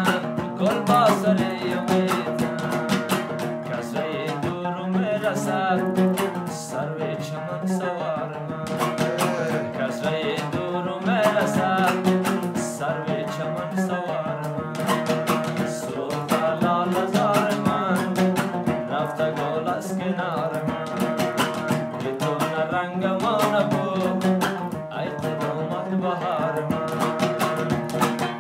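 Afghan dambora, a two-string long-necked lute, strummed in a fast steady rhythm, with a man singing a folk song over it.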